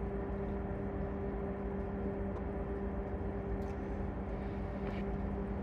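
Steady hum of a ship's engine-room machinery, with a constant low drone and a faint tick or two near the end.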